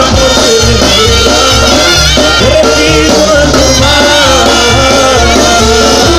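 Mexican banda music played loud: many instruments together over a steady, regular bass beat.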